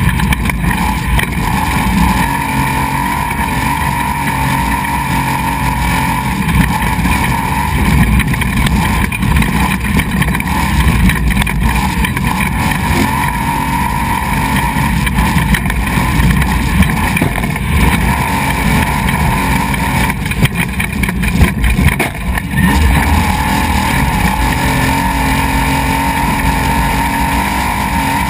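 Desert race truck's engine running hard at speed over a dirt course, with road and wind noise as heard from a camera mounted on the truck. The sound turns choppy for a couple of seconds about three quarters of the way through.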